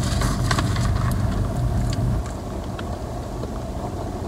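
Car engine idling, a steady low hum heard inside the cabin, a little quieter about two seconds in, with a few light clicks.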